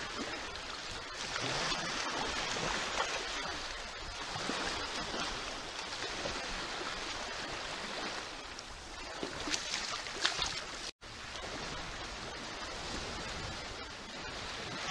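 Small waves washing and lapping over shallow sand, with a few sharper splashes in the shallows about nine to ten seconds in.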